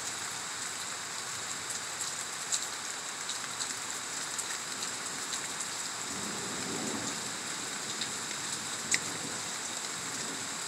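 Heavy thunderstorm rain falling steadily, with scattered sharp drop hits close by. A soft low rumble swells briefly about six seconds in.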